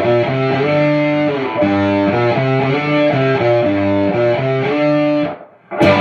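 Electric guitar played through a hand-wired one-knob fuzz pedal, a clone of the DAM Meathead, with the fuzz turned up: a riff of distorted chords changing every half second or so. The playing cuts off about five seconds in, and a short loud burst of noise comes just before the end.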